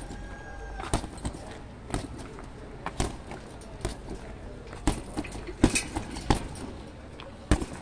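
Boxing gloves striking a hanging heavy punching bag: single punches and short combinations, about ten sharp hits spaced half a second to a second apart, the hardest a little over halfway through.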